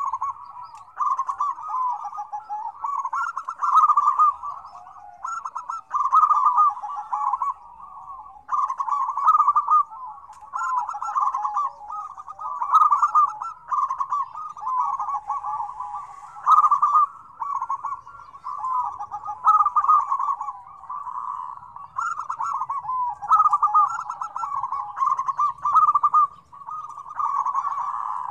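Several zebra doves (perkutut) cooing over one another in a busy chorus, overlapping cooing phrases following each other every second or two with no pause.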